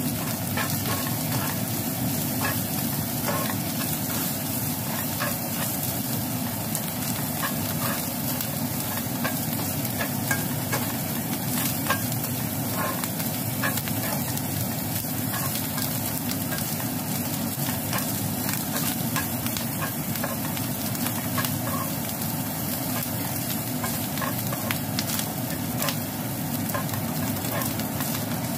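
Diced Chinese sausage and dried shrimp sizzling steadily in oil in a non-stick wok while a spatula stirs them. The spatula scrapes and makes frequent small clicks against the pan.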